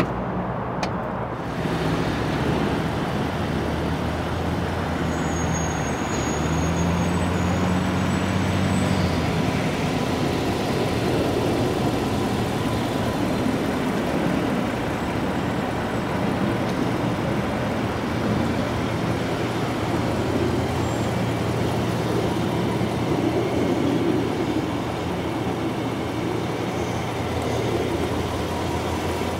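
Steady low hum of vehicle engine noise with outdoor background noise; the hum shifts in pitch now and then.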